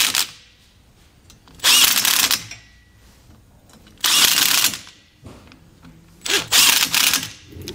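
Power driver running the nuts down onto the studs that hold a disc brake caliper bracket to a trailer axle flange, in three short runs about two seconds apart, one nut after another.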